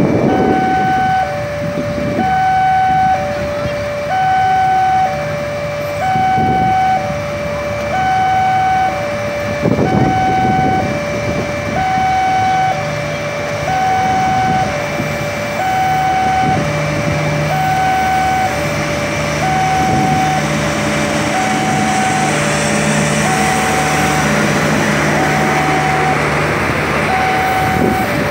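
Railway level-crossing warning alarm sounding two alternating tones, high then low, about one high-low cycle every two seconds. About halfway through a steady diesel hum comes in, and near the end rolling noise grows as the passenger coaches pass close by.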